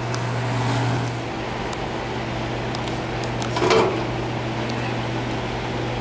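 2.5-ton Goodman heat pump's compressor running with a steady hum while the condenser fan motor stays off, the fault later traced to a bad defrost board. A few faint clicks sound over it.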